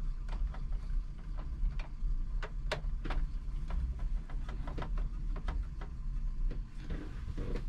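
Scattered small clicks and taps of cables and plug connectors being handled and fitted, over a steady low hum.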